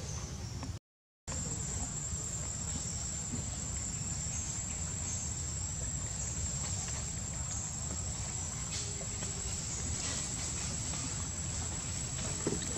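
Insects calling in a steady, high-pitched drone over a low rumble, with the sound briefly cutting out about a second in.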